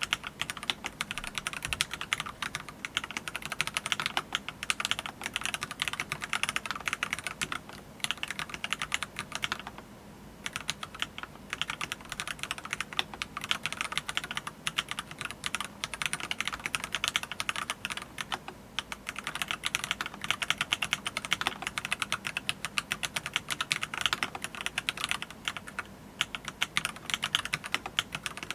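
Fast continuous typing on a tenkeyless mechanical keyboard with Kailh Box Red linear switches, a dense run of key clacks that pauses briefly twice.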